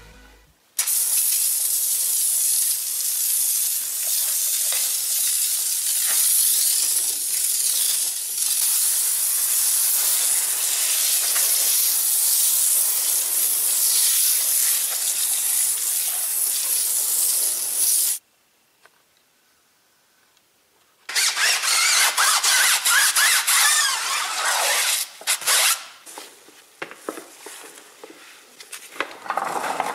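A handheld foam sprayer hissing steadily as it coats a wheel in foam, cutting off suddenly about 18 seconds in. After a few seconds of near silence, another loud stretch of hissing comes in, and near the end wheel brushes swish and clatter in a bucket of soapy water.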